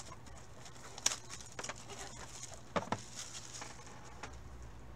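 Gloved hands handling trading card boxes and cards on a table: light rustling, with a sharp tap about a second in and two more close together near the three-second mark, as a sealed cardboard hobby box is set down.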